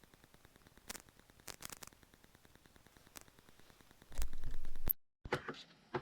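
Faint hiss from a Rode VideoMic Go with scattered pops and crackles, the intermittent noise its owner blames on the mic. About four seconds in comes a low rumble of handling as the mic is unplugged, then a sharp click and a brief dead dropout as the camera switches to its onboard mic.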